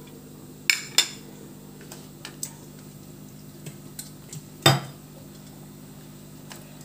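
Ceramic plates and a steel spoon clinking and knocking as they are handled and set down: two sharp clinks about a second in, a few light taps, and the loudest knock near five seconds in. A low steady hum runs underneath.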